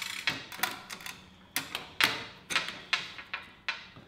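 A quick, irregular series of sharp clicks and taps, about a dozen, from metal and plastic parts as an ASUS Strix graphics card is seated and fastened into an open-air PC test bench.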